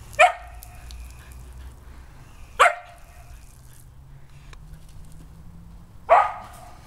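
A Shetland sheepdog barks three times, single sharp barks a few seconds apart, the last a little longer than the others.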